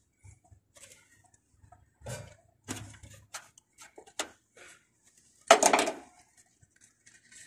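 Hands working wires inside a metal air-conditioner control panel: scattered small clicks and rustles, with one louder metallic clatter about five and a half seconds in.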